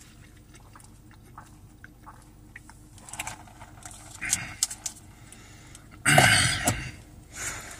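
A man drinking soda through a straw, with faint sips and swallows, then a loud, breathy exhale from the mouth about six seconds in.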